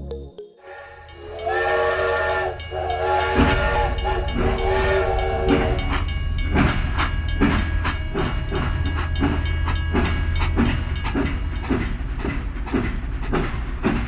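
Train whistle blowing a few blasts, then a steady clickety-clack rhythm of train wheels running over rail joints.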